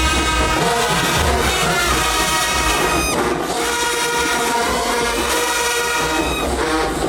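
Marching band brass playing with sustained chords over a heavy low-brass bass line.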